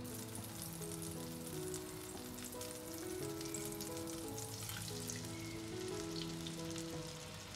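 Butter sizzling and crackling as it foams in a hot frying pan, with steady background music.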